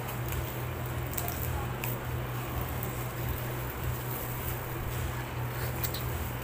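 Plastic-gloved hands handling a cooked crab: soft squishing and rustling with a few faint clicks, over a steady low hum.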